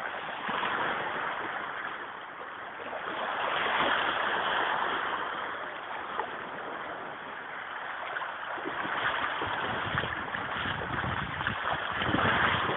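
Small sea waves washing and lapping against a rocky shore, swelling and ebbing in loudness, with wind rumbling on the microphone in the later part.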